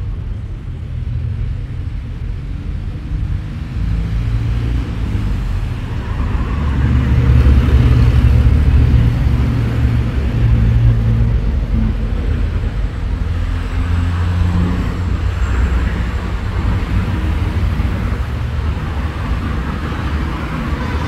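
Street traffic: motor vehicles passing on the road, a continuous low rumble that swells loudest around the middle.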